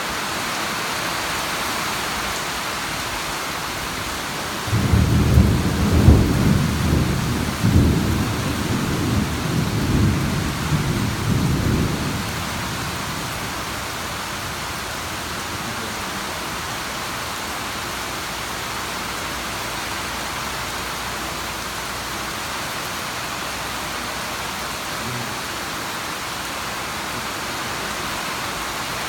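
Steady rainfall, with a low roll of thunder that starts about five seconds in, peaks almost at once and rumbles on for some seven seconds before fading back under the rain.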